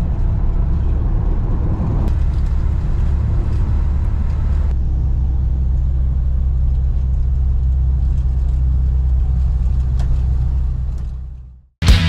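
VW T2 camper van's engine running steadily, low-pitched and even, fading out near the end.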